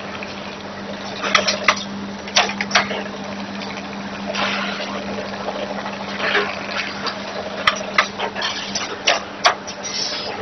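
Automatic bag-packing machine running: a steady hum under sharp clacks that come in quick pairs, and a couple of short hisses.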